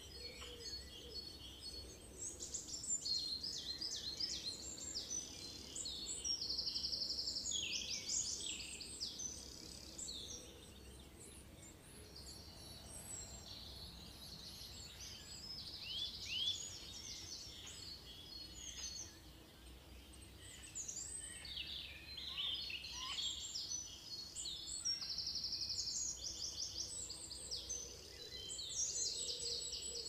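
A chorus of many birds calling at once: overlapping chirps, short whistles and fast trills over a faint steady background, busiest at the start and near the end and thinner in the middle.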